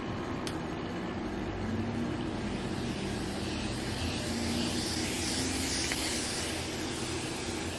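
Q-Redew handheld hair steamer running: a steady hum with a hiss of steam that swells and falls as it is worked through the hair.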